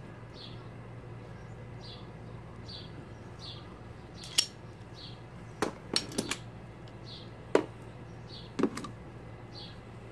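Steel hand tools clinking: locking pliers and pliers let go of a small brass valve part and are set down in a metal tool case, giving several sharp clinks between about four and nine seconds in. A short high chirp repeats faintly about every 0.7 seconds behind them.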